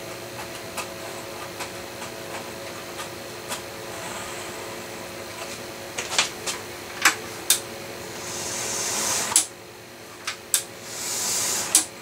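OO-gauge model locomotive's small electric motor whirring steadily as it pulls a coach along the track, with a few sharp clicks about six to seven seconds in and two hissing surges near the end. The owner hears a little wheel slip as it starts and when it pushes, which he puts down to the locomotive having no traction tyres.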